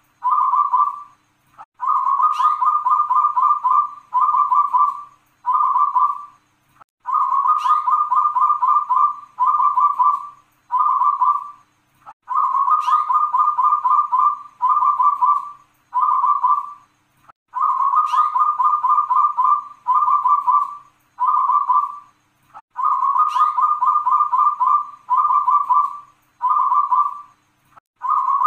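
Caged local zebra dove (perkutut) singing its repeated cooing song, five phrases about five seconds apart. Each phrase is a quick rolling run of coos followed by three separate 'kung' notes, the long 'kung' ending that keepers prize.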